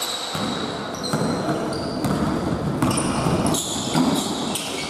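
Basketball game on an indoor court: the ball bounces on the hard floor about once a second, with short high-pitched sneaker squeaks in between, in a hall with some echo.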